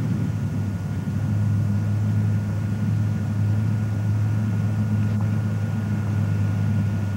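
Engine of a WWII T-16 tracked carrier driving across a field: a steady low drone that holds one pitch, with a faint click about five seconds in.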